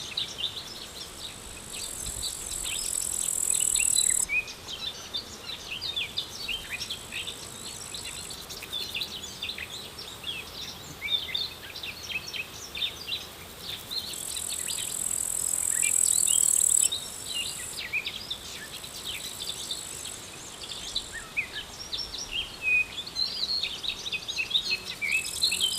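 Small birds chirping and singing all the way through, with an insect's steady, very high-pitched trill, like a cricket or grasshopper, swelling in for a few seconds at a time, three times.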